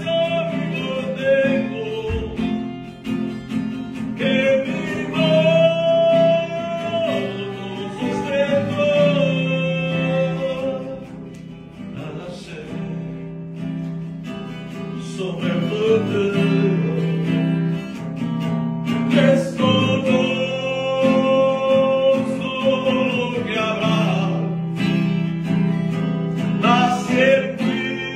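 A man singing a Spanish hymn while strumming a steel-string acoustic guitar; the singing pauses briefly about halfway, leaving the guitar alone.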